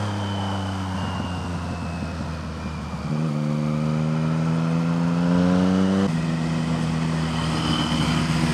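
Triumph Street Triple's three-cylinder engine under way with wind rush: it pulls harder and rises in pitch from about three seconds in, drops suddenly at about six seconds with an upshift, then runs steady.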